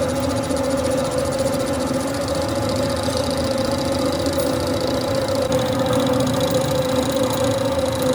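Manual lathe running steadily, its motor and gearing giving a constant hum with a steady whine.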